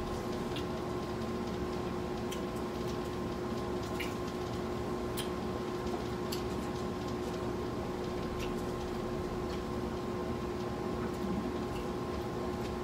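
People chewing fried chicken: scattered crunches and wet mouth clicks and smacks at irregular moments, over a steady electrical-sounding hum.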